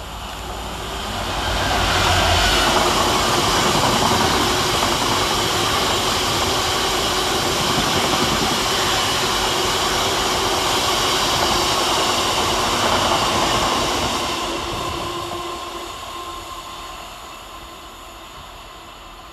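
Class 66 diesel freight locomotive running through at speed with a long train of box wagons. Its engine's deep rumble peaks about two seconds in as it passes, then the wagons' wheels run by with a steady rumble on the rails, fading away over the last few seconds.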